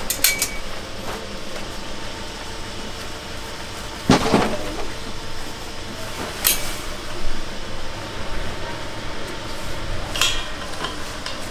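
A handful of sharp clinks and knocks from kitchen utensils over a steady background noise, the loudest about four seconds in.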